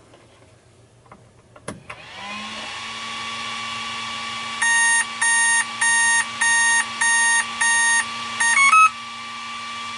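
A DIY electric longboard's brushless motor drive powered up on the bench: a click, then a steady electric whine that rises briefly and settles. About five seconds in the electronics give seven evenly spaced beeps, then a quick rising three-note chirp, with the whine running on under them.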